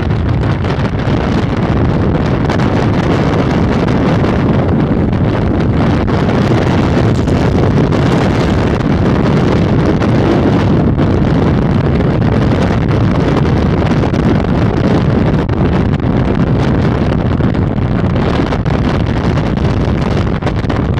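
Heavy wind buffeting on the microphone of a camera held out on a motorcycle at road speed: a loud, steady, low rush of noise.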